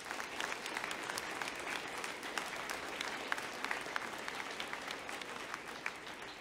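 Audience applauding: dense, steady clapping from a large crowd that begins to fade near the end.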